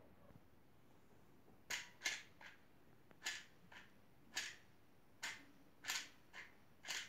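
About ten short, sharp clicks at irregular spacing, some in quick pairs, starting a little under two seconds in, as the on-screen buttons of a smartphone's Bluetooth car-control app are pressed.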